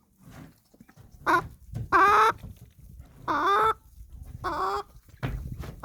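Chickens clucking and calling, with four separate drawn-out calls that bend in pitch.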